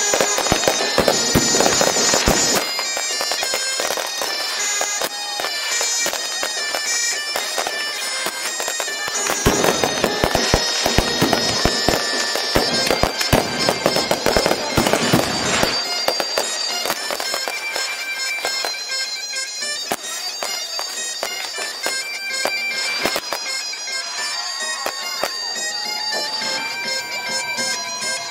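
Fireworks display: heavy bangs with dense crackling, most intense in two stretches near the start and in the middle. High steady tones run over the bursts throughout, and rising whistles come near the end.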